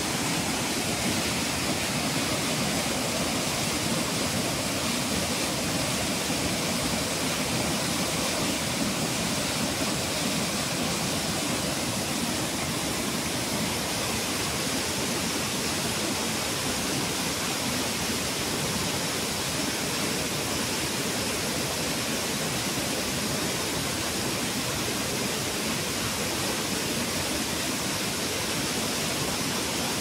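Waterfall rushing steadily, brown foaming river water pouring over rock ledges.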